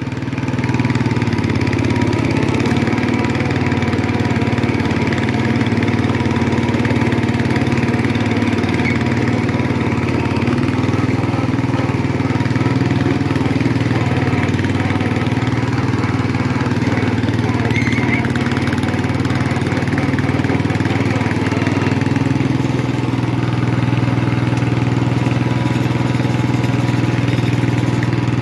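1967 Sears Custom 6 garden tractor's engine running steadily while the tractor drives in gear across grass. The engine note shifts in pitch a few times.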